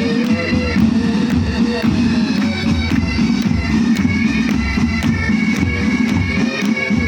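Pipe band playing: bagpipes sound a melody over their steady drone, with regular drum strokes beneath.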